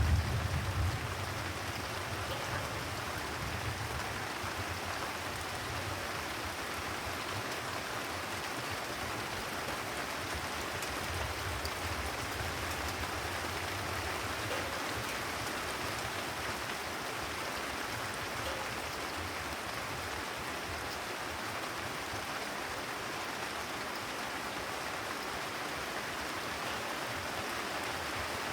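Steady rain falling on a terrace. In the first second the tail of a low thunder rumble fades out, and a fainter low rumble swells and passes about halfway through.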